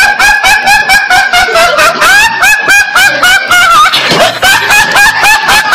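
A teenage boy laughing hard and high-pitched, in rapid repeated bursts about five a second, with a brief catch of breath about four seconds in.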